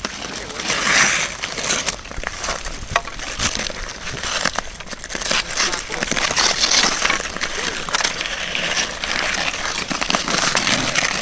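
Ice skate blades scraping and hissing across pond ice in swells, with a few sharp clicks of hockey sticks and puck on the ice.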